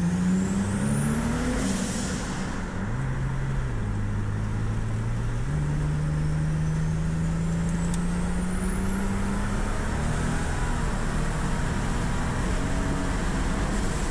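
Turbocharged 3800 V6 accelerating hard through the gears, heard from inside the cabin: the revs climb, drop sharply at a shift, flare and fall again, then climb steadily, with a rising turbo whistle and a brief hiss as the revs fall. The driver says it was slipping pretty bad through this pull, with an early shift.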